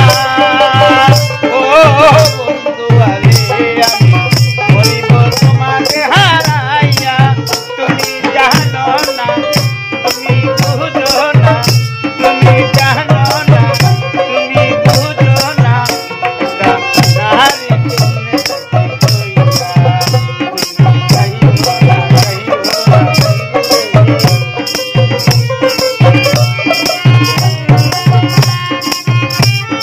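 Bengali baul folk song: a voice singing over a steady hand-drum beat and evenly spaced rattling percussion strokes.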